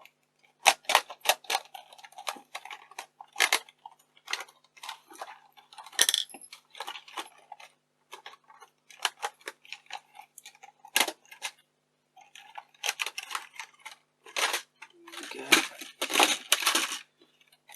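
Clicks, taps and short rattles of small metal and plastic parts being handled as a camcorder is taken apart, with a denser run of clatter near the end.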